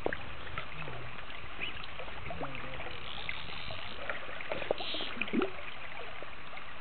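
Steady rush of a shallow river's current flowing past, with a few faint clicks scattered through it.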